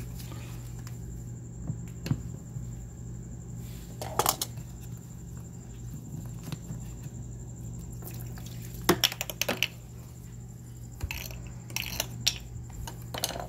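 Clinks and knocks of a hand tool and plastic fittings being handled at a drain pipe outlet as its cap is taken off, in a few short clusters, the loudest about nine seconds in. A steady low hum runs underneath.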